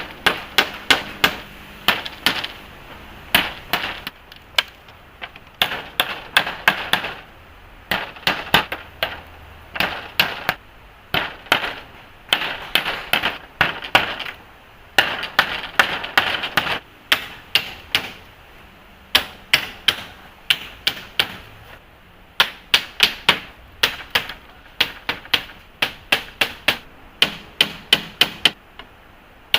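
Rapid runs of sharp knocks, several blows a second, with short pauses between the runs, like a tool repeatedly striking something hard.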